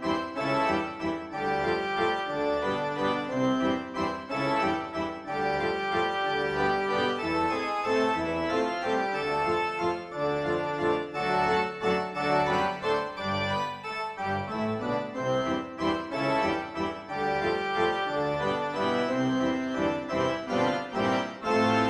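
Instrumental background music carried by organ-like keyboard chords and melody, with held notes changing steadily throughout.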